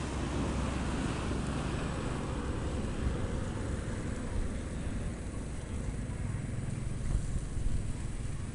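Wind buffeting the microphone: a steady low rumble that swells and dips in gusts.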